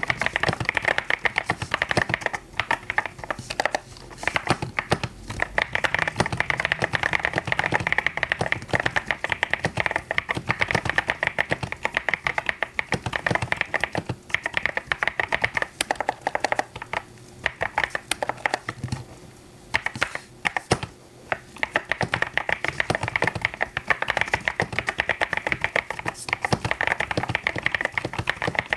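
Fast continuous typing on a mechanical keyboard: a dense stream of keystroke clacks, thinning briefly about two-thirds of the way through.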